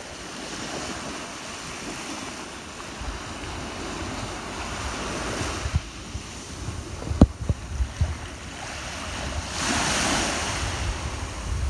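Small waves washing up onto the shore and breaking, swelling twice, most strongly near the end. Wind rumbles on the microphone, with a few low knocks a little past halfway.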